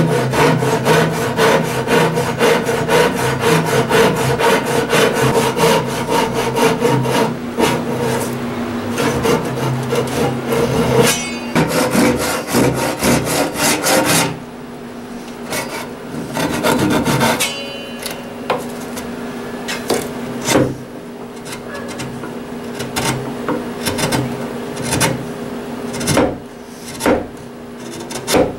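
Japanese hand saw cutting maple in fast, regular strokes for about fourteen seconds, then quieter scraping as a chisel works the cut, with a few sharp knocks near the end.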